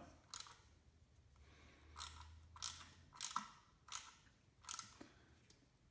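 A 1/4-inch drive ratchet clicking in short bursts as it is worked back and forth, tightening a camshaft bearing install tool. There are six bursts, the last five evenly spaced a little under a second apart.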